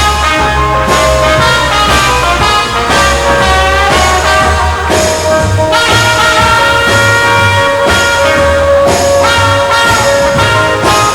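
Instrumental break of a swing-style song, brass instruments carrying the melody over a moving bass line, with no singing.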